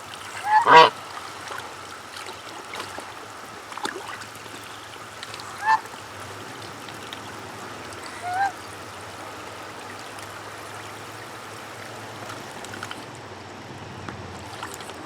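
Domestic goose honking in four short calls, the loudest about a second in and the others spaced two or so seconds apart.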